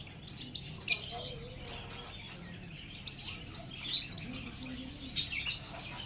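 Caged birds chirping: scattered short, high chirps, with a sharp one about a second in and a denser run of chirping near the end.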